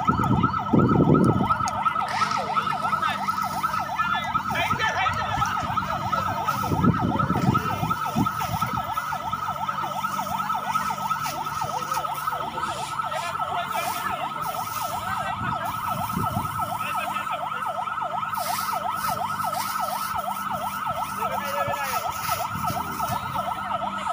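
Fire engine siren sounding continuously in a fast, even warble, cutting off near the end.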